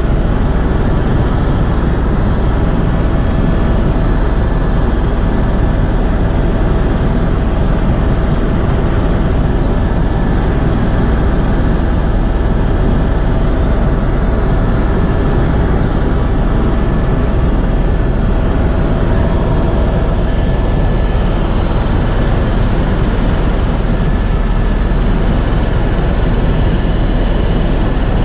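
Helicopter in flight: a loud, steady drone of engine and rotor noise, with a few thin steady whine tones on top.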